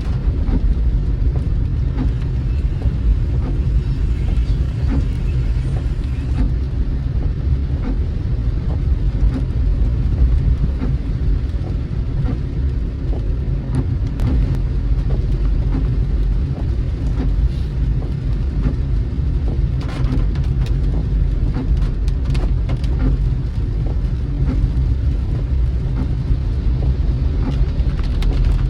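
Steady low rumble of a car driving, heard from inside the cabin, with scattered light ticks of rain hitting the car.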